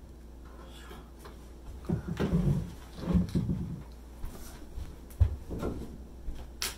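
Kitchen knife cutting a ripe persimmon on a wooden cutting board, with sharp knocks of the blade on the board. A cluster of dull thumps comes about two seconds in.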